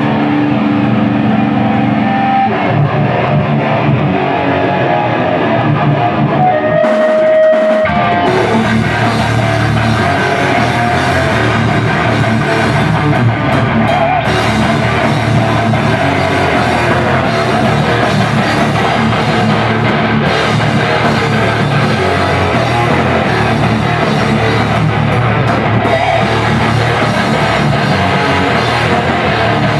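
Rock band playing loud live: electric guitars, bass guitar and drum kit. About seven seconds in the low end drops out for a moment, then the full band comes back in.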